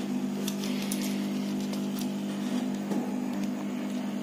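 Hot air gun running with a steady motor hum and hiss of blowing air, heating the glued rubber sleeve of a Bluetooth earphone's neckband to soften the glue. A few faint clicks sound over it.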